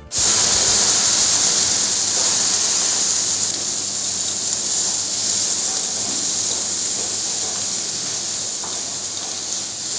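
Scallops and fillets searing on a flat steel teppanyaki griddle, a steady sizzling hiss that eases slightly over the seconds.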